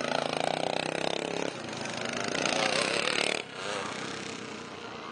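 Vintage motocross motorcycle engines buzzing and revving as bikes ride the track, one engine's pitch rising and falling. The sound drops off abruptly about three and a half seconds in, leaving a fainter engine noise.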